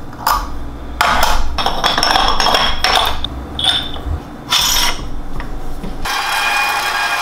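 Irregular clattering, knocking and scraping of kitchen tools and dishes, then a small motor starts running steadily about six seconds in.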